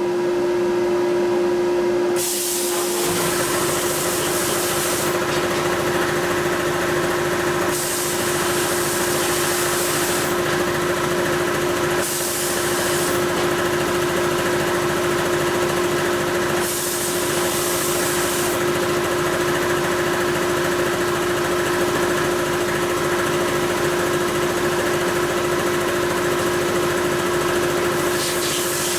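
Glass-bead blast cabinet in use: the air nozzle hisses in stretches of a few seconds, stronger and weaker in turn, over a steady motor hum. About three seconds in, another machine starts and runs underneath with a low, rapid pulsing.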